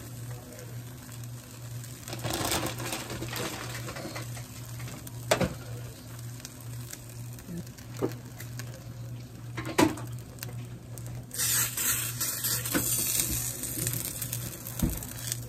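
Quesadilla sizzling in an oiled pan, with two sharp knocks against the pan and a steady low hum underneath. A louder hiss comes in for a few seconds near the end.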